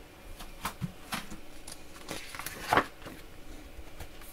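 A large picture book's paper page being turned and handled: a series of short rustles and light taps, the loudest about two and three-quarter seconds in.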